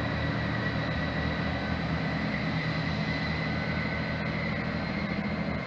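Class 158 diesel multiple unit running under power as it pulls out over the crossovers: a steady low diesel engine drone with a thin, steady high tone above it.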